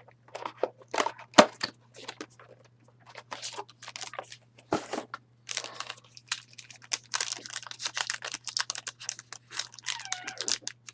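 Trading-card box packaging and wrappers being torn open and crinkled by hand: a busy run of rips, crackles and small clicks that grows denser about halfway through. A faint steady electrical hum sits underneath.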